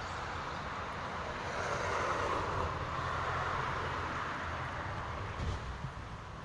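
Steady outdoor background noise: an even rushing hiss over a low rumble, swelling slightly partway through, with no distinct calls or knocks.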